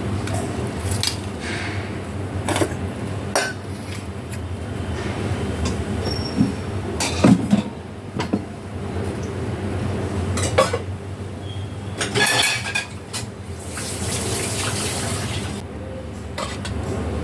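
Kitchen work: metal utensils and dishes clinking and knocking at irregular intervals over a steady low hum, with a short hiss, like running water, about fourteen seconds in.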